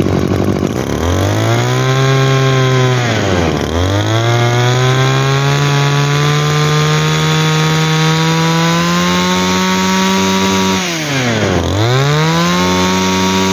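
Komatsu G2KM 22cc two-stroke brush cutter engine revving up from idle about a second in. The revs drop sharply and pick back up twice, about three and a half seconds in and again near eleven seconds, and the pitch creeps higher while it is held open.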